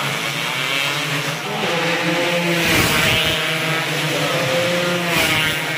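Two-stroke 120cc underbone racing motorcycle engine revving hard, its pitch rising and falling.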